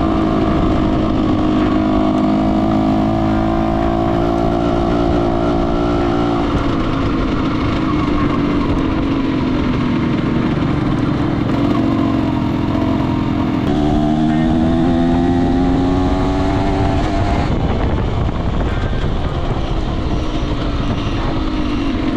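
Yamaha DT125R's two-stroke single-cylinder engine running and being revved: its pitch holds, drops back, climbs steadily later on, falls off, then rises again near the end.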